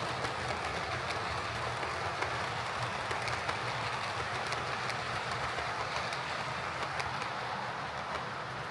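Heljan OO gauge Class 58 model diesel locomotive running along the track, with a steady motor and gear hum and light clicking of the wheels over rail joints. It is running after a drive cup that had come off the worm shaft was refitted.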